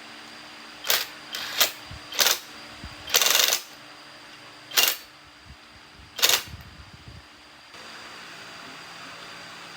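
A series of sharp clicks and knocks, about six over seven seconds, one of them a longer rasping burst of about half a second, from parts or tools being handled during a workshop repair. A steady hum comes in near the end.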